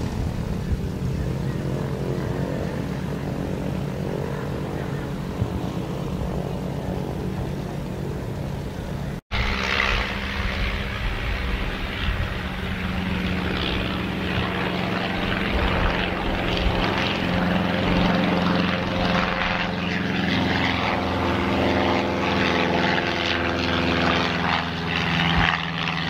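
Nieuport WWI biplane's piston engine and propeller running steadily on the ground. After an abrupt cut about nine seconds in, the engine is louder as the biplane flies by.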